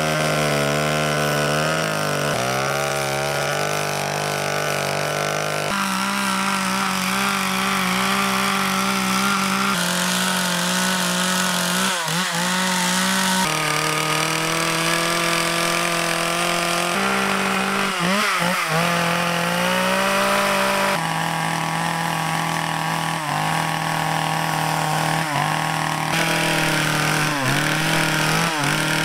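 Gasoline carving chainsaw running at high revs as it cuts into a wooden sculpture. The engine note dips briefly and recovers several times as the chain bites into the wood, and it shifts suddenly between steady pitches a few times.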